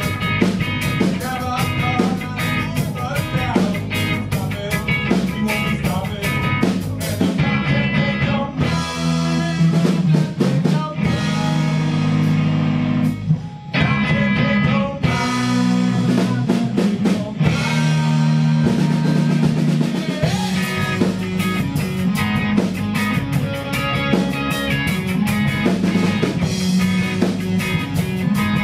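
Band playing live with guitar and drum kit in an instrumental passage. The drums drop out briefly about eight seconds in and again near the middle, leaving held chords.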